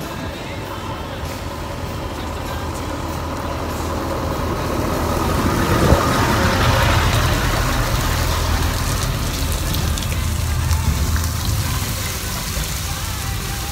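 Truck driving slowly over the camera: a low engine rumble that grows louder to a peak about six seconds in as the vehicle passes overhead, then gradually fades.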